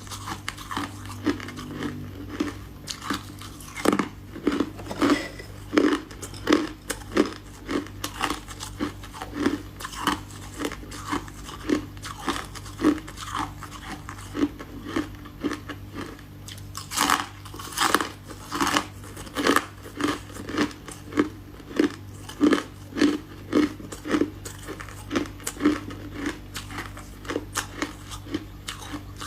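A person biting and chewing chunks of freezer frost ice close to the microphone: a continuous run of crisp crunches, a few a second, over a faint steady low hum.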